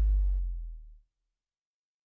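The low rumbling tail of a boom sound effect dying away over about a second, then dead silence.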